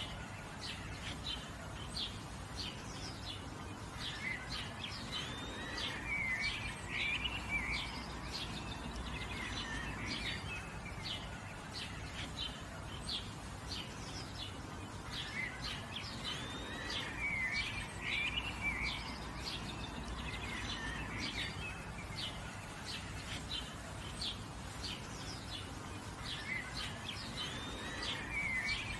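Forest birdsong: many birds chirping in short high notes, with a warbling song phrase that comes back about every ten seconds, over a steady background hiss.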